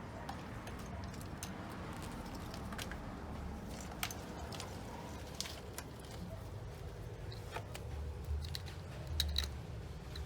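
Scattered small clicks and taps of hands handling fuel pump basket parts while the fuel pumps are being plugged in, over a low steady hum. A few sharper clicks come near the end.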